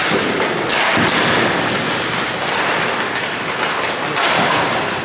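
Ice-rink practice noise: skate blades and goalie pads scraping on the ice, with louder swells of scraping noise about a second in and again near the end.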